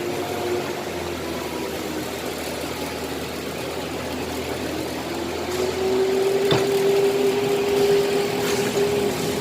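Factory machinery running steadily, with a motor whine that rises in pitch about five seconds in and then holds, as the noise gets louder.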